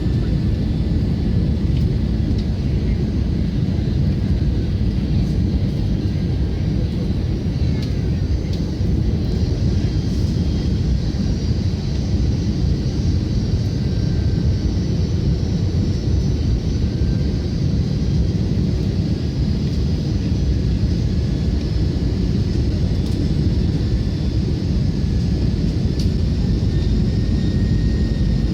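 Steady low rumble inside an Airbus A320 passenger cabin from its engines and the airflow over the fuselage, during the descent. Faint steady whines sit above the rumble.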